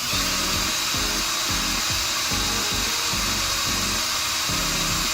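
Small power drill running steadily at high speed with a constant whine, its bit drilling out a screw in a laptop.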